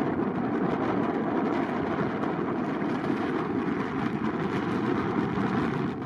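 ATR 72-600's twin Pratt & Whitney PW127 turboprops at takeoff power during the takeoff roll up to rotation: a steady, loud propeller and engine noise, mixed with wind buffeting the microphone.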